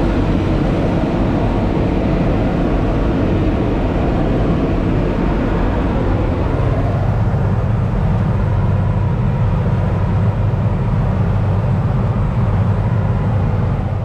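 Tractor engine running steadily under load, heard from inside the cab while it pulls a working big square baler.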